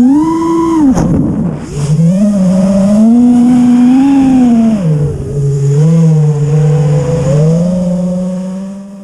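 FPV racing quadcopter's brushless motors (T-Motor F40 III 2600 Kv) and propellers whining in flight, the pitch rising and falling with the throttle. There is a brief crackling burst about a second in, and the sound drops away near the end.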